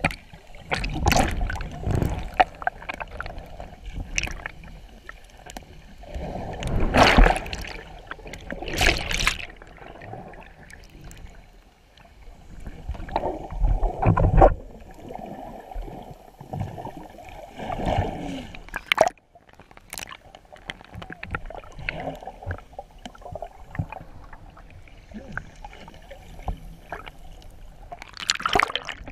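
Water sloshing and gurgling around a camera moving through the water at the surface, in irregular surges, with a splash of bubbles near the end.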